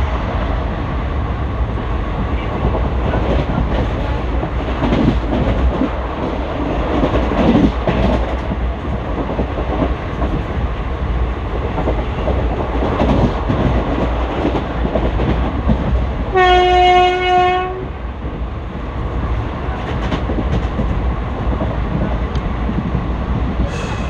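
ICF passenger coach running at speed, heard from inside: steady wheel-and-rail rumble and clatter. About two-thirds of the way through comes one horn blast of about a second and a half from the WAP4 electric locomotive hauling the train.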